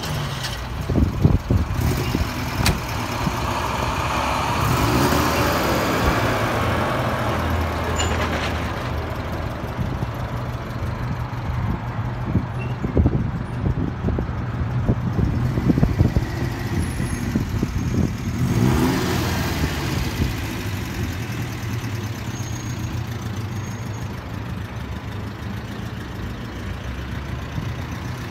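1969 Alfa Romeo Giulia Super 1.6's twin-cam four-cylinder engine idling steadily, with a couple of brief rises in revs. A few sharp clicks come on top.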